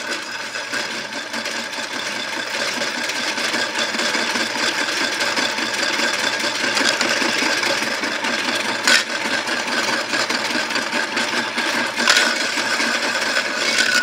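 Washmatic toy washing machine running, its small motor spinning the plastic drum with cookies tumbling inside: a steady whir with a sharper knock about nine seconds in and another about twelve seconds in.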